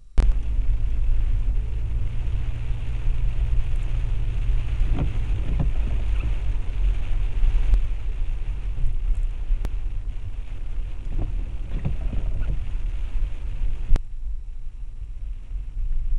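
Car driving on a wet road, heard inside the cabin: a steady low engine and road rumble with tyre hiss from the wet surface. Near the end there is a sharp click and the hiss falls away as the car slows behind braking traffic.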